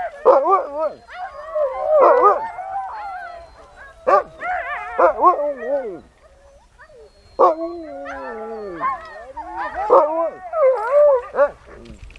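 A team of harnessed sled dogs barking, yelping and howling in overlapping bursts, with a short lull about halfway through: the dogs are calling while they wait to be started on a run.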